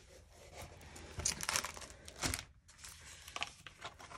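Plastic-film-covered diamond painting canvas crinkling and rustling as it is unrolled and smoothed flat by hand, in irregular crackly bursts, the loudest a little over a second in and again about two seconds in.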